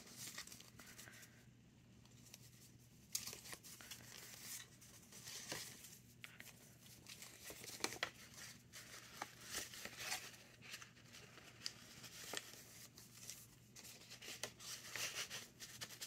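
Faint, irregular rustling and sliding of paper as hands shuffle an old photograph, paper tags and cards in and out of a paper envelope. It is nearly still for the first few seconds, then comes in short crinkles and scrapes.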